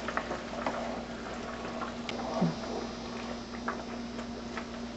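Pot of water boiling with spaghetti in it, nearly cooked: a steady bubbling hiss with a few faint clicks.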